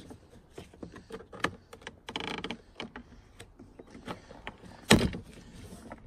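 Plastic pry tool levering at the car's interior door-handle trim: small clicks and knocks with a short grating creak of plastic about two seconds in, then one loud sharp snap about five seconds in.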